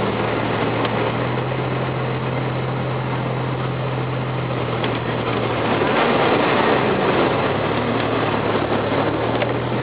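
A four-wheel-drive vehicle's engine running steadily while driving on a snowy road, under a steady rushing noise. About six seconds in the engine note breaks up for a couple of seconds, then settles again.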